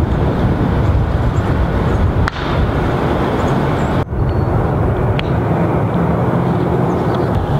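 Wind buffeting the microphone: a loud, steady rumbling rush that dips briefly twice.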